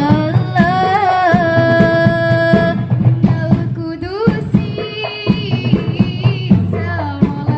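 A woman singing a sholawat, an Islamic devotional song, over hand-drum percussion, holding long ornamented notes, with a rising slide into a higher held phrase about halfway through.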